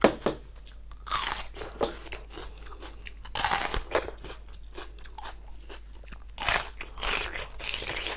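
A person biting and chewing crunchy food close to the microphone, in separate crunching bursts every second or two.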